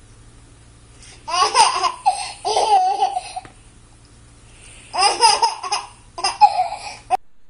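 A baby laughing in four bouts of giggles, the second drawn out into a held note, cutting off suddenly near the end.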